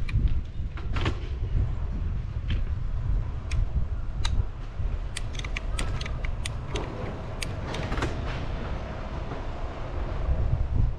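Wind buffeting the microphone and a low road rumble while riding a bicycle along a street, with scattered sharp clicks and rattles, most of them in the middle of the stretch.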